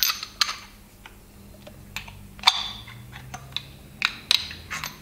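Light, irregular clicks and taps of small parts being handled as a single lip seal is pushed by hand into the housing of a Brose e-bike motor's sprocket carrier assembly. About ten clicks, the loudest about halfway through.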